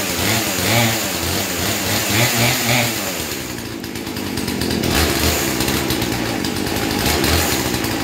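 Poulan Pro PP4218 42cc two-stroke chainsaw engine running unevenly, its speed rising and falling rather than settling to a steady idle. The owner puts this down to old fuel.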